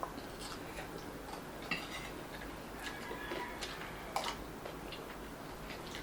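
Sparse eating sounds: small clicks and smacks of chewing and of utensils on a plate, with a few sharper ticks about two and four seconds in.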